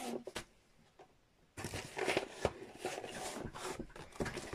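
Cardboard and plastic packaging rustling and scraping as items are handled and lifted out of a box: a brief rustle at the start, a quiet second, then an irregular run of rustles, scrapes and light knocks from about a second and a half in.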